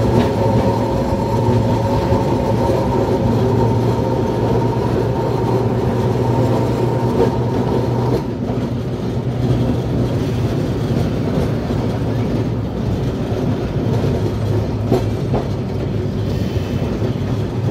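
Kolkata electric tramcar running along street track, heard from the driver's cab: a steady hum over the rumble of wheels on the rails. The higher hum fades about eight seconds in, leaving the rolling rumble with a few light clicks.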